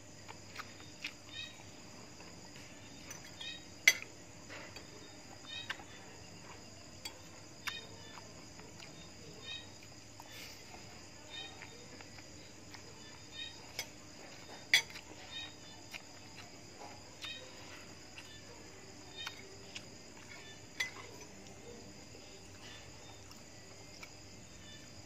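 A person eating: chewing, and a metal fork clicking against china, with two sharp clinks standing out, about four seconds in and near fifteen seconds. Crickets chirp steadily in the background.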